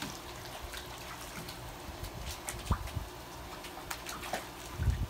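Shallow water in a plastic kiddie pool splashing and dripping in small, irregular bursts as two puppies wade and play in it, with a dull bump near the end.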